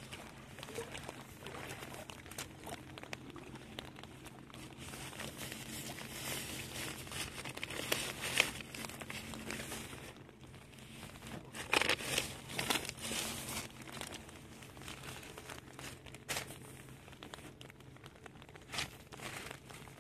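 Plastic bags crinkling and rustling as they are handled, in irregular bursts with a few louder rustles.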